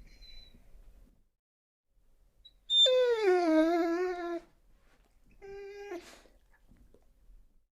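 Dog crying: one long whining cry about three seconds in that slides down in pitch, then a shorter, quieter cry held at one pitch a couple of seconds later.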